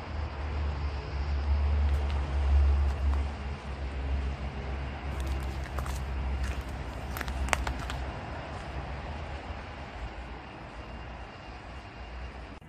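A low rumble, loudest in the first few seconds and fading away over the next several, with a few faint clicks midway.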